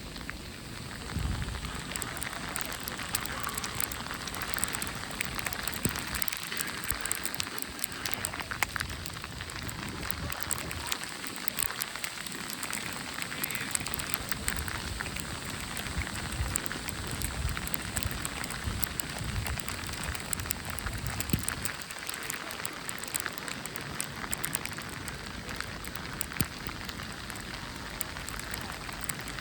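Outdoor snowstorm ambience: a steady dense hiss with fine, irregular crackling like precipitation striking nearby surfaces. Gusts of wind rumble on the microphone at times.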